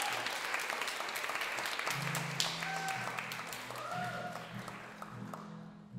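Audience applause, dense clapping that dies away near the end. From about two seconds in, soft acoustic guitar notes sound beneath it.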